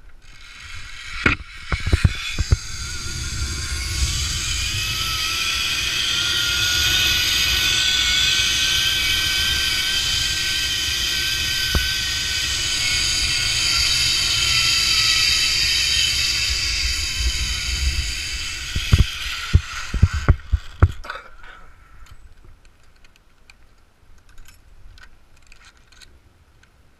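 Zipline trolley pulleys running down a steel cable, with wind rushing over the microphone. The whine climbs in pitch as the rider picks up speed, holds, then falls as the trolley slows. Metal clanks come as the trolley sets off, and a cluster of knocks about twenty seconds in as it reaches the landing.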